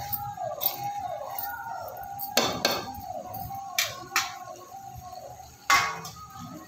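Metal spatula scraping and knocking against a metal kadhai while spiced potato pieces are stirred, in a few sharp strokes, the loudest near the end. A repeating tone of about two pulses a second sounds in the background.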